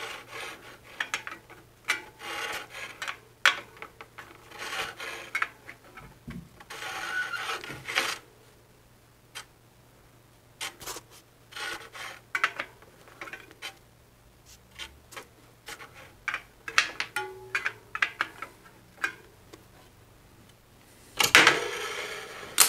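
Bicycle front wheel being trued in a truing stand: a spoke wrench clicking and creaking on the spoke nipples, with the rim rubbing against the stand's gauge in several spells between adjustments. A louder scrape near the end.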